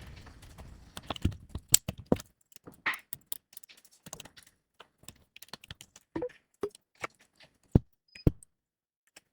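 Scattered light clicks and taps of small tools and phone parts being handled, the two loudest knocks coming close together near the end. A low rumble fades away over the first two seconds.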